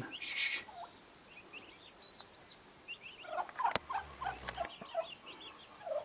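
White turkey hen and her young poults calling: many short, high peeps throughout, joined by a run of lower short calls about three seconds in. A single sharp click sounds near the middle.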